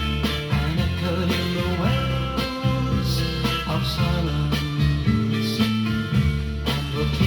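Instrumental passage of a late-1960s beat-band recording, led by guitar over a steady bass line.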